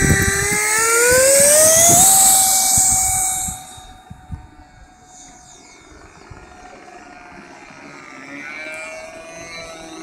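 Graupner Epic Victory RC model jet's electric ducted fan spooling up for takeoff: a whine rising in pitch that then holds steady over a loud rushing hiss. About three and a half seconds in, the sound drops sharply and goes on as a faint distant whine as the model flies off, its pitch sliding near the end.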